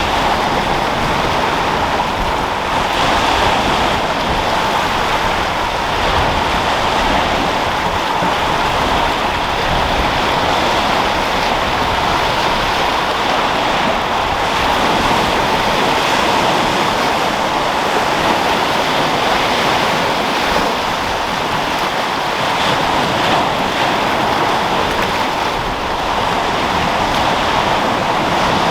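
Sea waves breaking and washing onto a rocky shore in a steady, continuous surf, with wind blowing across the microphone.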